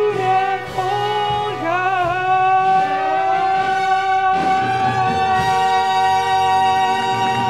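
Stage-musical song finale: a pit band with brass and a singer closing the song on one long held final note.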